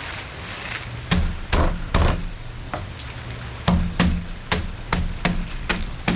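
Block of instant ramen noodles broken up inside its sealed packet by striking it: about a dozen dull knocks at irregular spacing, starting about a second in.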